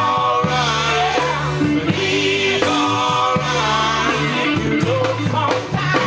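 Live gospel group performing: electric guitar and bass with singing voices over a steady band.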